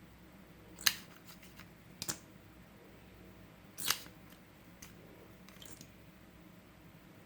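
Scissors snipping: a handful of short sharp cuts, the loudest about a second in and about four seconds in, with a quick double snip near two seconds and fainter ones after.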